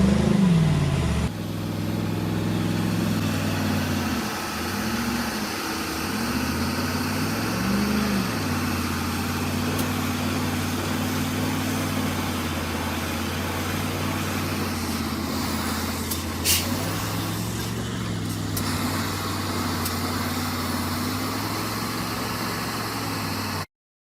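Heavy vehicle engine running steadily, revving up and dropping back a few times, most clearly about four and eight seconds in. A brief sharp noise cuts in about sixteen seconds in.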